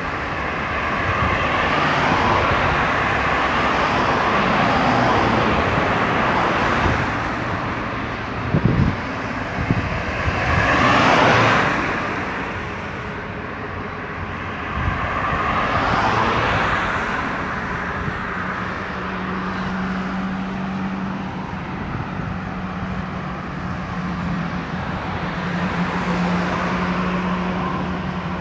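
Road traffic on a highway: cars passing one after another in swells of tyre and engine noise, the loudest pass a little over a third of the way in. Past the middle a steady low engine hum sets in and stays.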